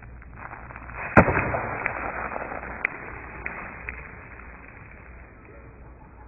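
Coke and Mentos bottle rocket launching: a sharp pop about a second in, followed by a fizzing spray hiss that fades over the next few seconds, with a few small clicks.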